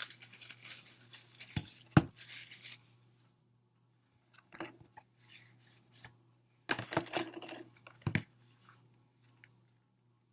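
Plastic wrapping torn and crinkled off a CD album, with a sharp click about two seconds in, then scattered light knocks and taps as the album and its contents are handled.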